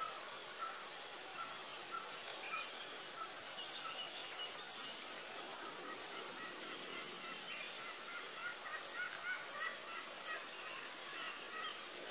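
Steady high-pitched drone of insects in the background, with a continuous run of short chirping calls from a bird, repeating about three times a second.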